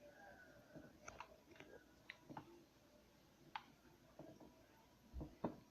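Faint, scattered clicks and light taps of small craft pieces being handled during hot-gluing, with two soft knocks near the end.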